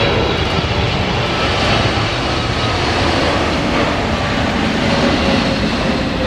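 Jet airliner engines running: a steady rumble with faint whining tones over it.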